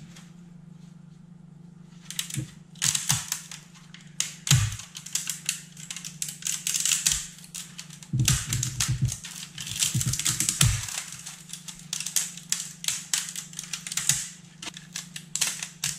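3D-printed plastic raft and support material being snapped and peeled off a print by hand: dense, irregular crackling and snapping starting about two seconds in, with louder cracks now and then. The support on this part is hard to remove.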